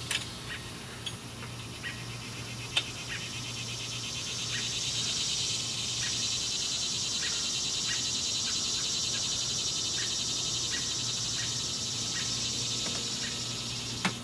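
Light metallic clicks and taps of a bicycle roller chain and its master link being handled and pressed together by hand, the sharpest about three seconds in. Under them run a steady low hum and a high buzzing hiss that swells after about four seconds.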